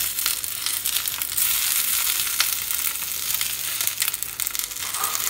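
Halved Roma tomatoes, serrano chiles and onion frying in a little oil in a stainless steel skillet: a steady sizzle with scattered sharp crackles.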